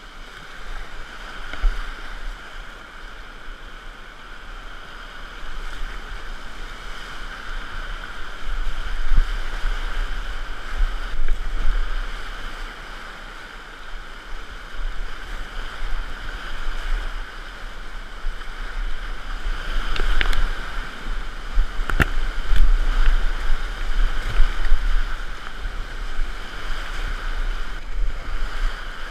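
Whitewater rapids rushing around a kayak paddling down through them, swelling and easing as the boat passes through the drops, with a heavy low rumble underneath. Two sharp knocks stand out, about twenty and twenty-two seconds in.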